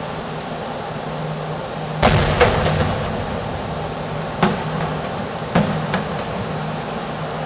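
Fireworks shells bursting at a distance: five sharp bangs that ring out briefly, a loud pair about two seconds in, one more a couple of seconds later and another pair near the end. A steady mechanical hum runs underneath.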